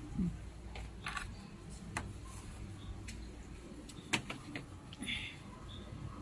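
A few light, scattered clicks and knocks over a low background, the sharpest about four seconds in, with a brief low hum at the start and a short hiss about five seconds in.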